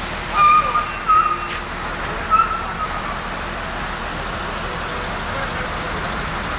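Steady road and engine noise from traffic on a mountain road, with a vehicle horn sounding three short honks in the first two and a half seconds.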